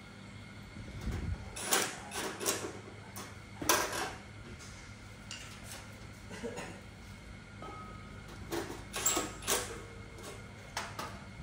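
Intermittent clatter and knocks of metal being handled at a stove with a pot on it, over a steady low hum. A short beep sounds about eight seconds in.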